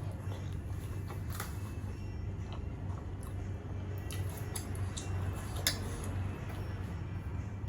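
Close-miked eating sounds: wet chewing with soft smacks and clicks every second or so, over a steady low hum.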